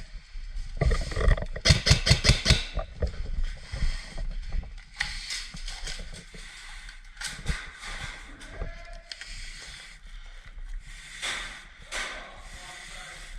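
Airsoft guns firing: a rapid string of sharp cracks about a second in, then scattered single shots and clicks over rustling movement.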